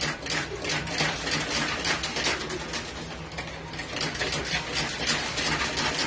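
Coin pusher arcade machine: coins dropping through the peg board and clinking onto the shelves of coins in a quick, irregular clatter. Under it runs a steady low hum from the machine.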